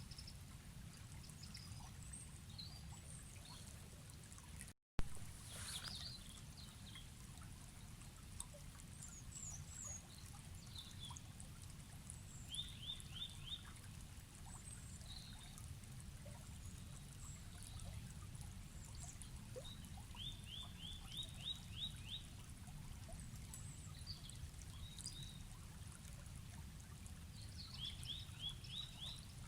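Steady low rush of a forest river, with birds singing over it: one bird repeats a short, quick run of high, falling notes several times, among scattered higher chirps. About five seconds in the sound cuts out for a moment and comes back with a sharp click.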